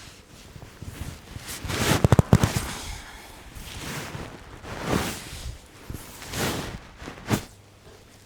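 Spinal joints cracking under a chiropractic manipulation: a quick run of pops about two seconds in, then movement sounds, and one more sharp pop near the end.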